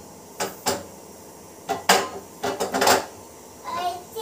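Kitchen clatter: several sharp knocks and clinks of utensils and cookware being handled at the stove, with a quick cluster of knocks past the middle.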